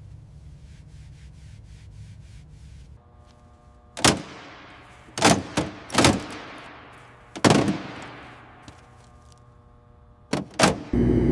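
A run of seven sharp, loud impacts at uneven intervals, each ringing out and fading over about a second, after a few seconds of low rumble. A loud steady hiss starts near the end.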